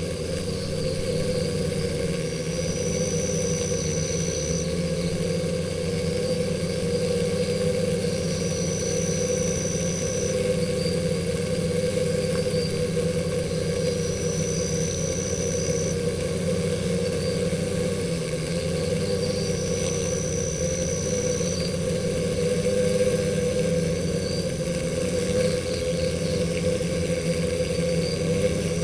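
Stingless bees buzzing at their nest hole: a steady low hum. A separate high, thin tone of about two seconds comes back roughly every six seconds.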